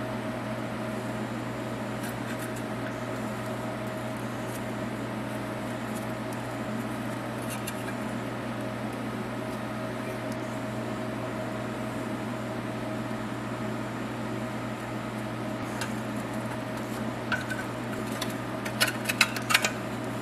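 Steady background hum in a small room, with a few sharp metallic clicks and clinks near the end as the pressed-steel parts of a vintage Tonka toy truck cab are handled and pulled apart.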